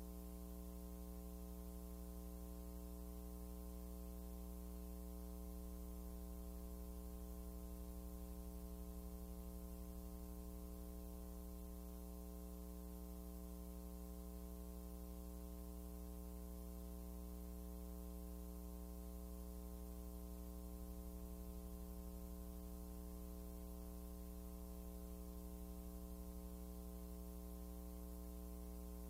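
Steady electrical mains hum with a ladder of overtones, unchanging throughout; no loom or other sound is heard over it.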